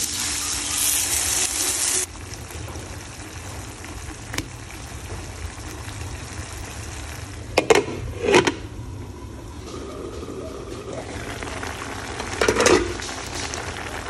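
Water poured into a hot pan of frying papaya sizzles loudly, then cuts off about two seconds in to a quieter steady bubbling simmer. Sharp knocks come through it: one faint one, a close pair about halfway through, and another near the end.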